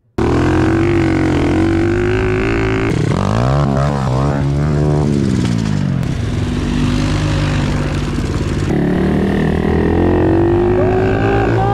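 Pit bike engines running and revving, the engine note changing abruptly every few seconds, with one stretch near the middle where the revs climb and fall back.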